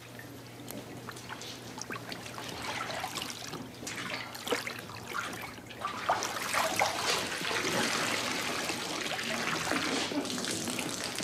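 Water trickling and splashing as a soaked child is lifted out of the water and wrapped in towels, getting louder about halfway through.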